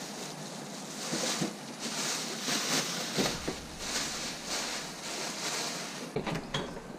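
Thin plastic shopping bag crinkling and rustling in repeated bursts as it is wrapped and twisted around a gutted fish, with a couple of light knocks near the end.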